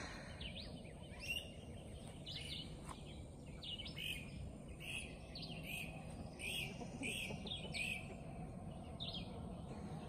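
Birds chirping, a steady scatter of short high chirps, over a faint low outdoor background noise.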